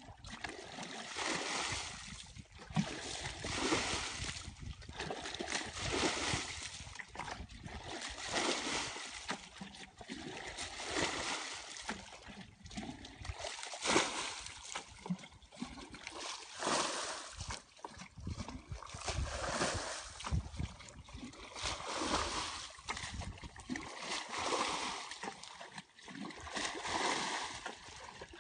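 Muddy pond water being bailed out with a plastic bucket: it is scooped and dumped again and again, splashing about every two seconds.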